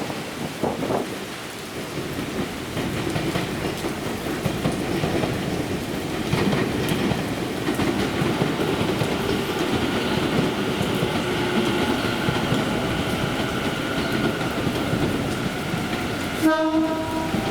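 Electric commuter train running along the platform in heavy rain, wheels on rail with a steady whine from the traction motors. A short horn-like tone sounds near the end.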